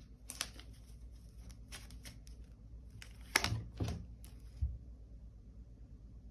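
Tarot cards being handled: a string of short rustles and snaps of the deck as cards are shuffled and drawn, the loudest cluster a little past halfway.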